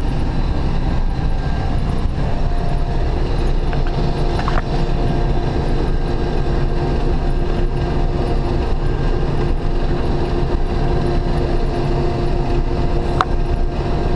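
Combine harvester running steadily while picking up a canola swath, its engine and threshing works making a low, even rumble. A steady hum joins about two seconds in, with a couple of faint clicks.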